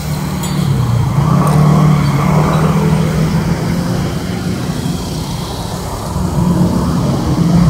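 Motor scooter engine running close by, a steady low hum that swells about a second in and again near the end.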